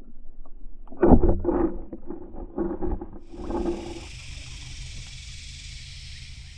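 Muffled underwater knocks and gurgling as a camera moves through river water. About three seconds in it breaks the surface, and a steady high hiss of open air over the river takes over.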